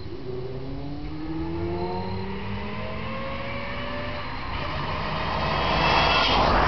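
Nissan 300ZX (Z32) accelerating: several whining tones climb steadily in pitch for about four seconds, then a louder rushing noise swells near the end. The owner calls it a weird noise and tags it as a transmission noise.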